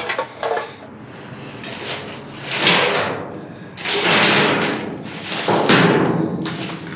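Trash being rummaged through by hand: three loud rustling, scraping swells of refuse being shifted, with knocks and clatter.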